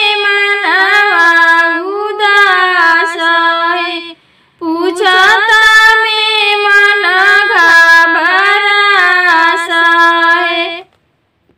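A high voice singing a Bhojpuri devotional song to Shiva, with no instruments heard. It sings two long phrases with a brief pause after about four seconds, and the singing stops shortly before the end.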